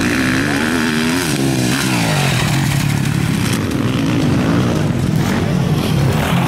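Motocross bike engines revving hard, the pitch climbing and falling with the throttle and gear changes over the first two seconds, then running at a steadier, lower pitch.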